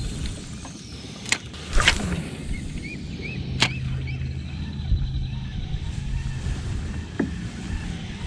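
Spinning reel being cranked to retrieve a topwater frog lure, its gears giving a steady low hum for a few seconds midway. Several sharp knocks of the rod and tackle fall around it.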